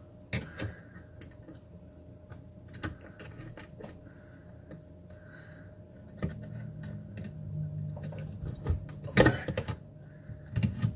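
Scattered light clicks and rattles of electrical wire being worked out through the metal wiring plate and cord clamp of a garbage disposal, with a louder clatter about nine seconds in.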